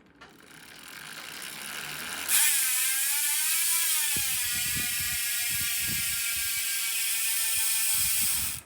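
Bike drivetrain whirring as the rear wheel is spun up by hand-cranking. Then, a couple of seconds in, the Profile Elite rear hub freewheels with a loud, high, steady pawl buzz, its pitch easing slightly lower as the wheel coasts. It stops abruptly near the end when the wheel is stopped.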